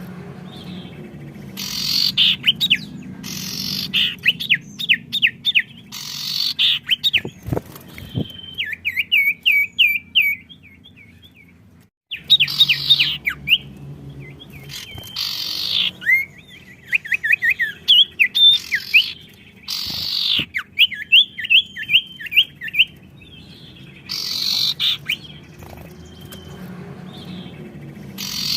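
Songbirds in full song answering one another: loud harsh chattering bursts trade off with fast trills of quick, sharply falling notes, over and over. The sound drops out abruptly for a moment about twelve seconds in, then resumes.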